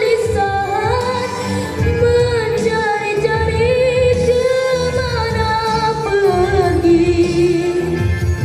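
A boy singing a Malay pop song into a microphone over a backing track with a steady beat, holding long notes that glide between pitches, amplified through stage speakers.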